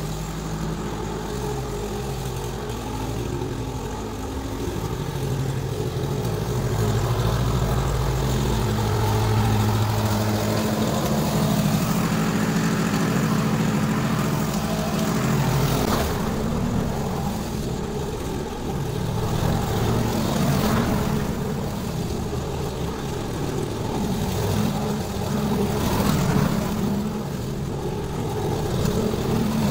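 Old petrol walk-behind rotary lawn mower running under load while cutting grass. It gets louder as it passes close by, roughly 7 to 15 seconds in, then fades as it moves away.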